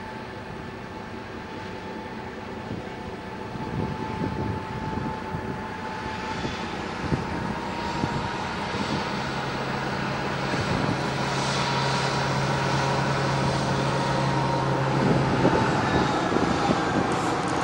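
LDH-Faur diesel-hydraulic shunting locomotive's engine running under load as it hauls a train of hopper wagons, a steady drone that grows louder as it draws closer. A strong steady low hum sets in about nine seconds in.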